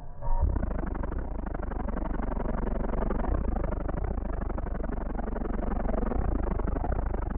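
Electronic music played loud through a car audio system with two 15-inch GZRW subwoofers on a Plutonium 4000 amplifier wired at 2 ohms, heavy deep bass dominating. The sound is heard from just outside the car by the open window. The music drops out for a moment right at the start and comes back a fraction of a second later.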